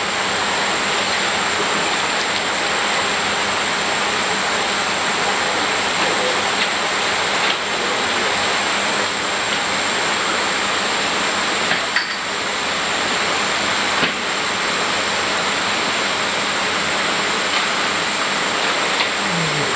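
Steady rushing and splashing of water in a tub crowded with Kohaku koi churning the surface, with a couple of light knocks partway through.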